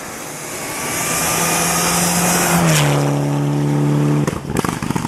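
Rally car passing at speed on a snowy stage: its engine note builds, drops sharply in pitch as it goes by about two and a half seconds in, then breaks into a spatter of crackles near the end.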